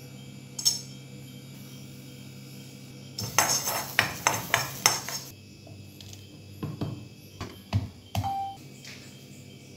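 A metal spoon scraping and clinking quickly against a dry metal wok as spices are stirred in it, then a handful of separate low thuds as a wooden pestle strikes in a wooden mortar.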